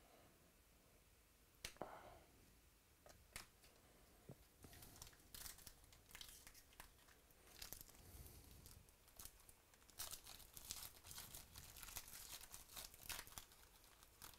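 Foil trading-card pack wrappers being torn open and crinkled by hand, faint. A few scattered ticks at first, then the crinkling grows busier from about a third of the way in.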